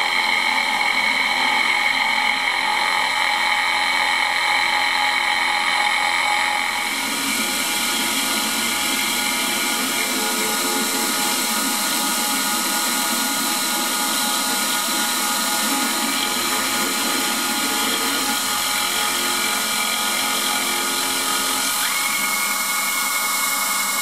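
CNC router spindle running with a small cutter machining a cast aluminium bracket: a steady, high-pitched whine over the noise of the cut. The sound changes abruptly about seven seconds in, and a further steady tone joins near the end.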